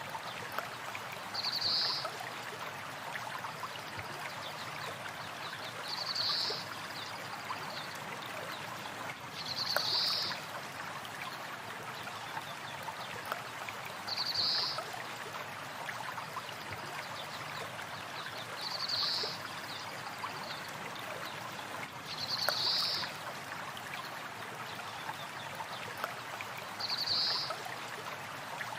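River water flowing steadily, with a short, high, trilling bird call repeating about every four to five seconds, seven times.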